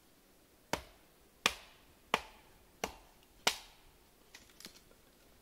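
Wooden baton knocking on a Skrama bush knife, five sharp strikes about two-thirds of a second apart, driving the blade down through a stick of wood to split it. A few lighter knocks follow near the end.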